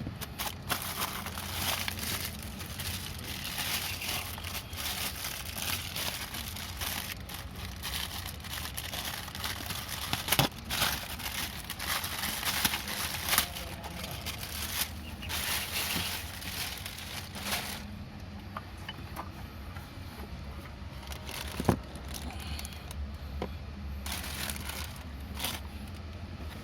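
Packaging crinkling and rustling as a car audio amplifier is unwrapped, with scattered sharp clicks and knocks from handling. The crinkling dies down about two thirds of the way through, leaving only occasional clicks.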